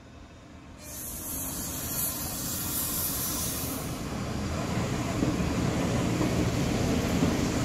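Red Munich S-Bahn electric multiple unit (DB class 423) arriving and passing close by. Its noise builds about a second in with a high hiss, then settles into a louder steady rumble of wheels on rails as the cars go by.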